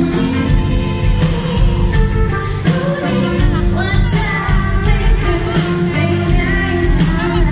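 Live band playing a slow pop song: acoustic guitar, electric bass and drums, with a woman's voice singing the melody from about three seconds in.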